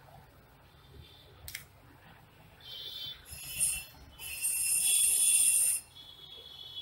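A sketch pen being fitted and clamped into a drawing compass. There is a sharp click about a second and a half in, then scraping and rasping of plastic against metal, loudest for about a second and a half near the end.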